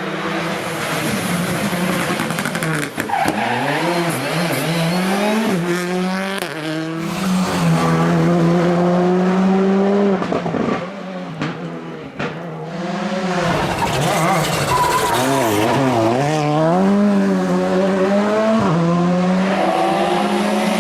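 Rally car engine revving hard at full throttle, its pitch climbing through the revs and dropping sharply at each gear change or lift off the throttle, several times over.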